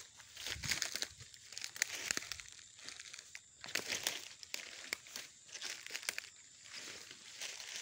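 Ferns and dry leaf litter rustling and crackling in irregular bursts as someone pushes through undergrowth on foot.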